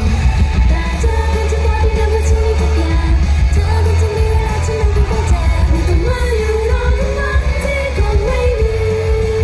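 Live pop song from a female idol group: a girl's voice singing the melody into a microphone over a loud, bass-heavy accompaniment.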